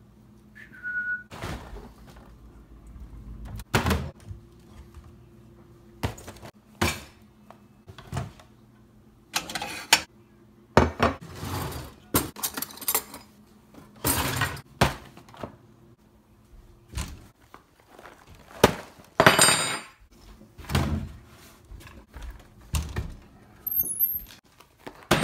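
Kitchen handling noise: a series of irregular knocks and thunks as a cutlery drawer and doors are opened and shut and things are picked up, over a faint steady hum.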